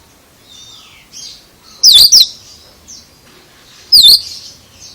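Oriental magpie-robin (kacer) giving a loud, sharp, quickly sweeping double note twice, about two seconds apart, with softer calls in between. This is the unusual call the bird is shown for.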